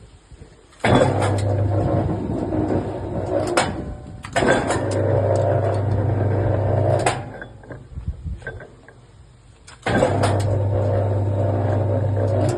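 Heavy-duty 32 mm rebar bending machine's motor and gearbox running in three spells of about three seconds each, with a steady low hum. Each spell starts and stops with a sharp clunk as the machine cycles through its bends.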